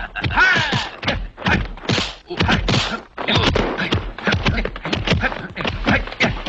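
Kung fu fight sound effects: punches, kicks and blocks landing as a rapid string of thuds and whacks, several a second.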